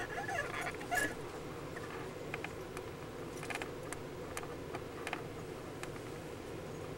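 Steady hum inside a stopped railway sleeper car, with a few short sharp clicks scattered through it, the loudest about a second in.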